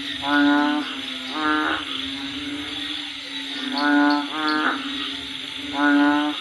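Bullfrogs calling in the rain: five low, even-pitched calls of about half a second each, two of them in quick pairs, over a steady hiss.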